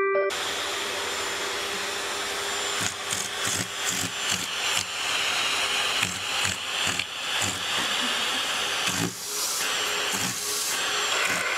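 Vacuum cleaner running steadily with its nozzle held against a cat's fur and face. The suction noise wavers unevenly as the nozzle shifts against the fur.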